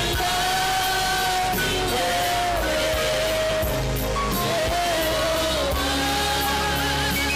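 Gospel music with singing: a voice holds long, wavering notes over a steady bass line and regular percussion.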